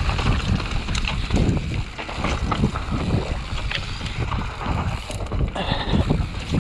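Wind buffeting the microphone over the rattle of a bicycle riding over rough ground, with scattered sharp knocks.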